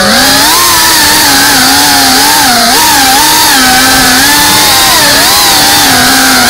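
FPV racing quadcopter's motors and propellers buzzing loudly, the pitch wavering up and down as the throttle changes in flight.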